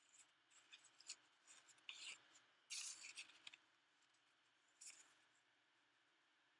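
Faint, scratchy rubbing strokes of a fine round paintbrush working paint on a smooth painted rock. The strokes come in a quick series, loudest about three seconds in, and stop about five seconds in.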